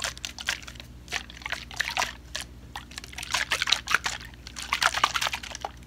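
Liquid sloshing in a small plastic bottle handled close to the microphone, with many irregular clicks and crackles.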